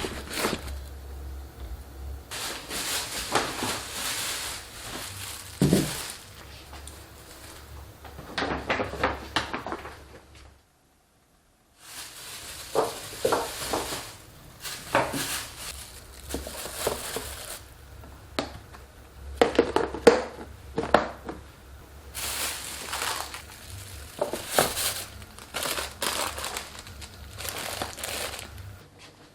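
Crinkling and rustling of plastic wrapping, with short knocks of kitchen items being handled, in irregular bursts broken by about a second of silence.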